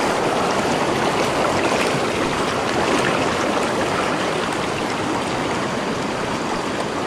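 Shallow river water rushing steadily over rocks close to the microphone.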